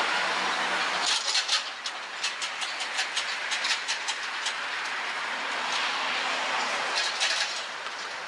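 Steady street traffic hiss from passing cars, with runs of sharp, irregular crackling clicks about a second in and again near the end as a plastic bottle is handled.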